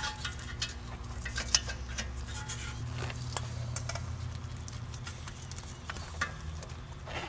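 Scattered light metallic clicks and taps as a new wheel stud is worked against the hub and steering knuckle, trying to slip it into the stud hole from behind, over a steady low hum.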